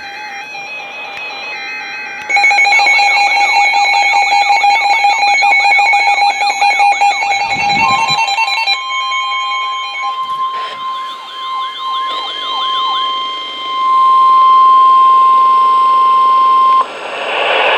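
NOAA Weather Radio alert: electronic alarm beeps and a repeating rising-and-falling siren-like warble, then, from about eight seconds in, the steady 1050 Hz Warning Alarm Tone held for about nine seconds, the signal that a warning message is about to be read. The tone cuts off just before the end and an announcer's voice starts.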